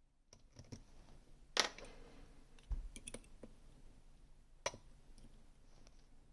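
Small metallic clicks and taps of a lock pick working inside a Gerda Exxo sidebar lock, with two sharper clicks, about a second and a half and about four and a half seconds in, and a dull low bump near the three-second mark.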